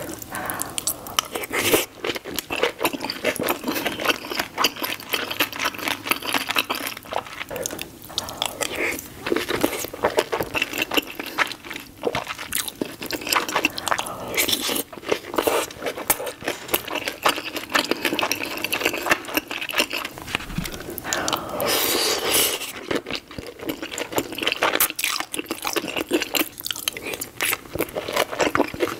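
Close-miked mouth sounds of a person eating soup dumplings: biting and chewing the soft wrappers, with wet smacking and many sharp clicks.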